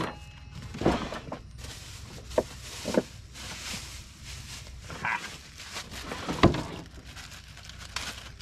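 Rummaging through gear in the rear storage of a 4x4 in search of a salt container: scattered knocks, clunks and rustling as items are moved about, the loudest knock a bit past the middle.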